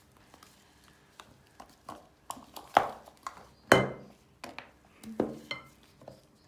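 Irregular clinks and knocks of containers and utensils against bowls and a tabletop, the two loudest about three and four seconds in, each with a brief ring.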